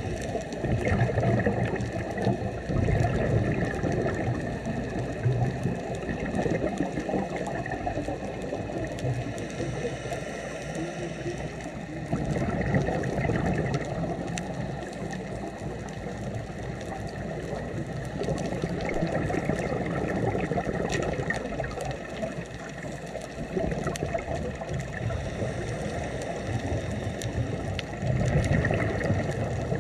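Underwater sound of scuba diving: a diver breathing through a regulator, with bursts of exhaled bubbles that swell up every several seconds over a steady underwater rush.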